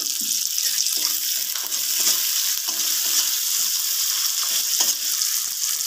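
Sliced onions sizzling in hot oil in a metal kadai, with a steady hiss, as a metal spatula stirs them, scraping and clicking against the pan a few times.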